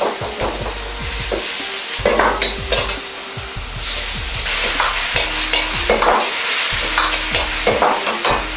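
Irregular scraping and clicking strokes, several a second, over a steady hiss.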